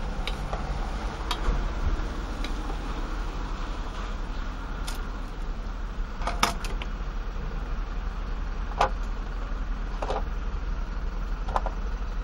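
Objects being handled and set down on a hard tabletop: a handful of short, sharp knocks and clicks from a wooden folding ruler, a kitchen scale and a knife in its sheath. Under them runs a steady, low background rumble.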